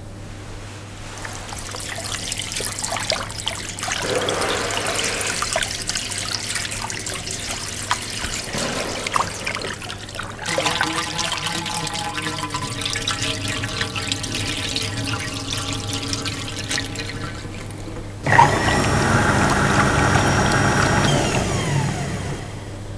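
Jets vacuum toilet: water running and splashing for most of the time, then a sudden loud suction whoosh of the vacuum flush about 18 seconds in that lasts about four seconds and stops.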